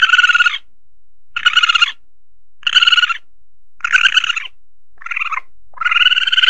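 Asian palm civet calls: short, high calls about half a second long, repeated about every 1.3 seconds, with one shorter, quieter call near the end.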